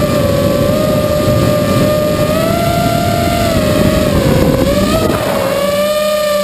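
Vortex 230 Mojo racing quadcopter's brushless motors and propellers whining, the pitch shifting up and down with the throttle and dipping briefly about five seconds in, over a low rushing noise.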